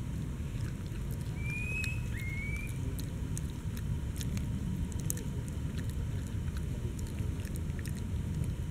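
Outdoor ambience: a steady low rumble with scattered small clicks and rustles throughout, and two short rising chirps about one and a half and two seconds in.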